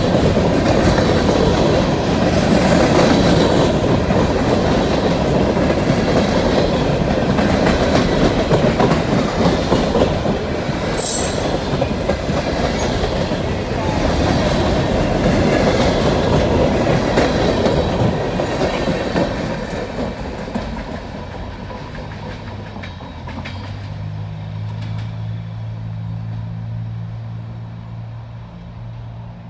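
Empty hopper cars of a freight train rolling past close by, their wheels clacking over the rail joints, with a brief high wheel squeal about eleven seconds in. The sound fades as the train moves off, and a low steady engine hum comes in near the end.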